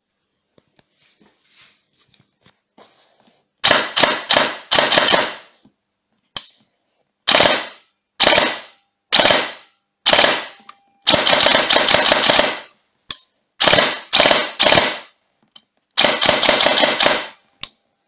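Systema PTW M4-A1 airsoft rifle firing short bursts through its rewound, rebalanced Etiny motor, on an 11.1 V lipo with an M120 cylinder. The first few seconds hold only faint handling clicks. Then comes a run of rapid bursts with short gaps, the longest about a second and a half.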